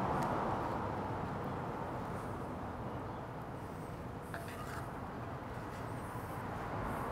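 Steady low background noise, with a couple of faint clinks a little over four seconds in as cooked plums are spooned from a cast iron skillet.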